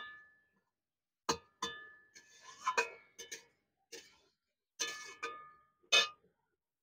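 Metal spatula clinking and scraping against the rim and sides of a metal kadai while a thick vegetable curry is stirred: about seven ringing clinks spaced irregularly, with a short scraping run in the middle. The loudest clink comes near the end, as the spatula is laid in the pan.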